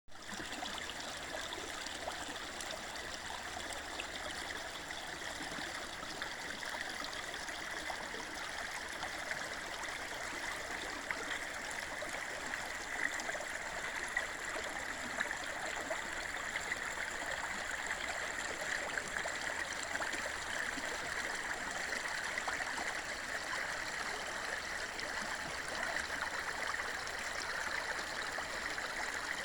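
A small forest river flowing: a steady rush of running water with a few faint splashes.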